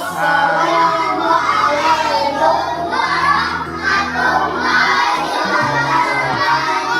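A group of children singing together, with steady instrumental music underneath.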